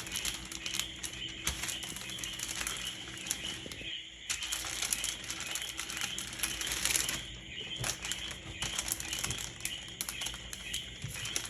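Parchment paper crinkling and rustling as a rolling pin is pushed back and forth over it, flattening the dough underneath, in a few passes with short pauses between them.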